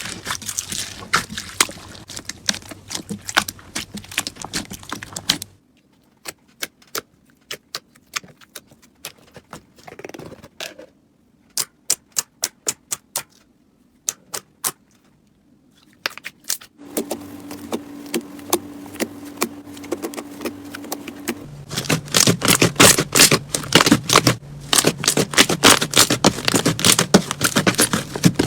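Crunchy slime being squeezed and pressed by hand, giving dense runs of sharp clicks and crackles. The middle stretch thins to scattered single clicks with silent gaps, and the clicking grows dense and loud again near the end.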